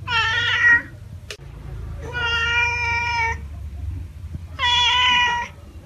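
Domestic cat meowing three times, the middle meow the longest.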